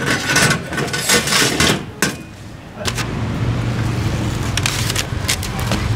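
Irregular noisy clatter for the first couple of seconds. Then a motor vehicle engine sets in and runs steadily with a low hum from about three seconds in.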